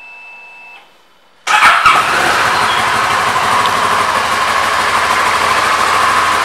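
2008 Kawasaki Versys's 649 cc parallel-twin engine being started: about a second and a half in it catches with a brief loud burst, then settles into a steady idle.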